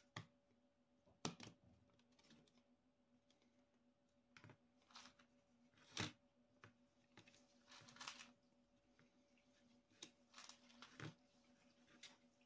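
Faint, scattered clicks and taps of plastic kit panels and small parts being handled and fitted together by hand, irregular, the loudest about six seconds in.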